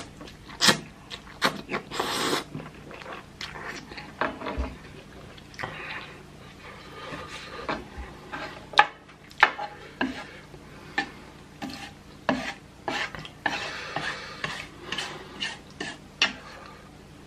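Fork stirring and scraping through a bowl of noodles, clinking against the bowl in irregular sharp clicks, with slurps of noodles between.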